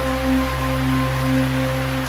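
Slow ambient music of long held tones, one of them gently wavering, over a steady hiss of rain.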